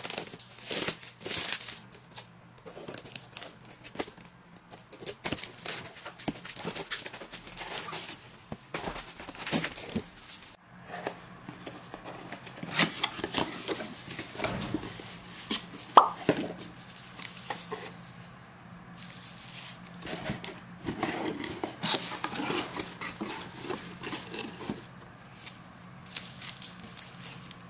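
Parcel being unpacked by hand: a plastic bag rustling and its tape tearing, then a kraft cardboard box opened and honeycomb kraft paper wrapping crinkling. There is a sharp click about sixteen seconds in.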